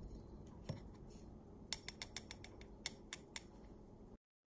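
Light metallic clicks of steel tweezers against the small parts of a pocket watch movement: one click, then a quick run of about eight, over a low steady hum. The sound cuts off suddenly near the end.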